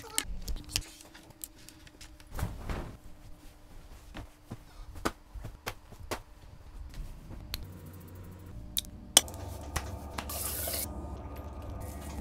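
Close-miked household handling sounds in quick succession: sharp clicks and taps, a phone lifted with its charging cable, and bedding and pillows rustling. About ten seconds in comes a short hiss over a low steady hum.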